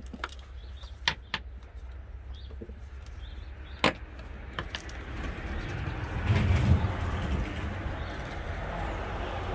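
A few sharp plastic clicks as wiring harness connectors are worked loose in a Land Rover Discovery 3 engine bay, then a swell of rumbling noise that peaks about six to seven seconds in.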